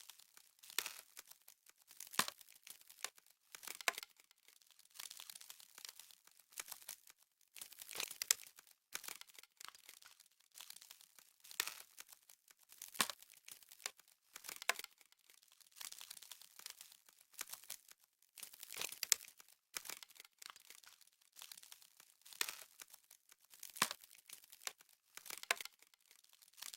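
Frost sound effect: crisp crackling and crinkling in irregular bursts, with sharper louder clicks every second or two.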